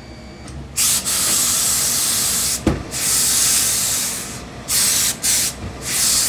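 Hose-fed steam iron shooting steam onto a suit jacket as it is pressed: two long hissing blasts of about a second and a half each, then three short puffs, with a sharp click between the first two blasts.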